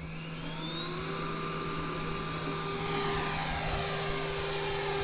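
50 mm electric ducted fan of a radio-controlled model Avro Vulcan spooling up with a rising whine over the first second, then holding a steady high whine at launch power as the model flies, growing louder.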